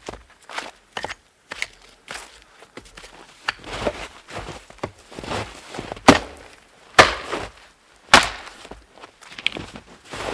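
Irregular crunches and knocks, a few per second, with three louder sharp strikes about six, seven and eight seconds in.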